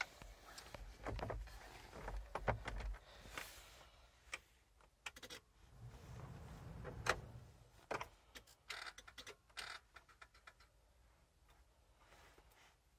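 Faint knocks, clicks and rustles of handling inside a truck cab, with the engine not running. There are dull thumps in the first few seconds, a run of sharp clicks near the middle, and it goes nearly quiet near the end.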